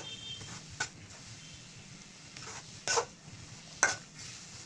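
A flat metal spatula stirring a bubbling sugar mixture in an aluminium kadai over a faint sizzle. It gives several sharp scrapes and knocks against the pan, the loudest about three and four seconds in.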